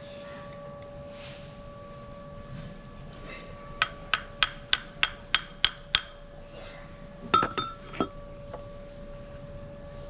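Hammer tapping metal on a Bajaj Pulsar's disc brake caliper during a brake pad change: a run of about eight quick ringing strikes, three to four a second, then a few more knocks a second or so later.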